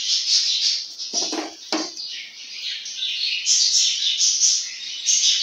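Birds chirping steadily in the background, busier in the second half, with two short lower sounds about a second and a half in.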